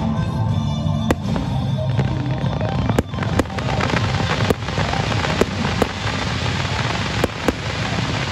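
Fireworks display: sharp reports of shells bursting, a second or so apart, over music with low held notes. About three seconds in, a dense hiss sets in and stays as a fan of gold sparks fires from the ground, with the reports going on over it.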